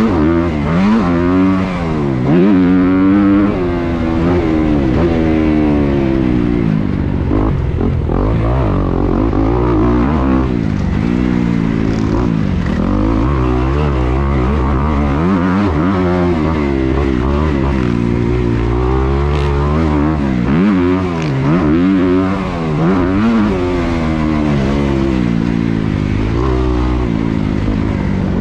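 Thumpstar 190 pit bike's single-cylinder four-stroke engine, ridden hard on a dirt track. It rises in pitch and drops back again and again as the throttle is opened and closed and the bike shifts gears.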